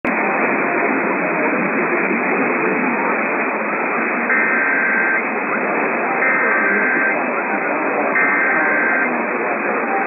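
Emergency Alert System header tones received over AM radio: hissy, muffled static for about four seconds, then three short bursts of two-tone digital data, about a second apart, marking the start of a Required Weekly Test.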